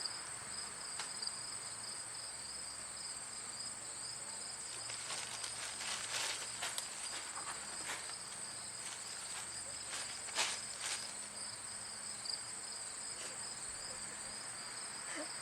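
A steady, high-pitched chorus of insects trilling, with a few brief clicks in the middle.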